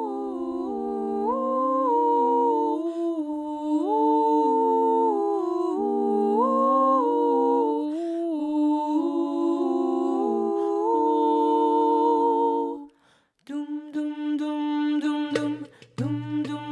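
Female voices singing a cappella in close harmony, with long held notes that move together from chord to chord. About 13 seconds in they break off. A new passage follows with short, clipped notes and a low steady drone underneath.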